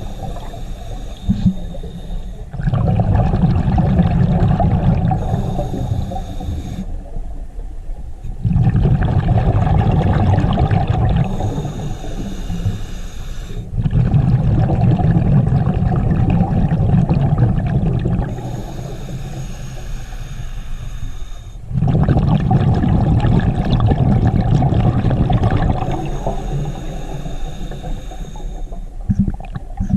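A scuba diver breathing through a regulator underwater, about four slow breaths: each is a hissing draw with a thin whistle, then a long, loud burble of exhaled bubbles.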